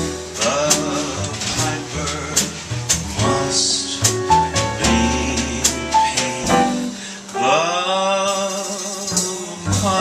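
Live cabaret music: a man singing a swing-style standard at a microphone, backed by piano and steady percussion hits, with a held, wavering vocal line near the end.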